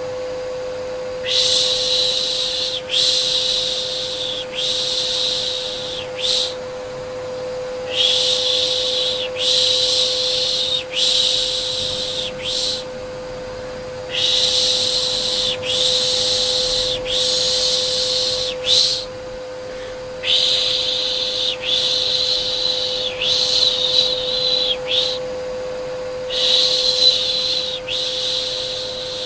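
Rhythmic baby-soothing shushing, a long 'shh' ('piş piş') repeated in runs of about four hushes of roughly a second and a half each, with short breaks between runs. Under it a vacuum cleaner runs with a steady humming drone.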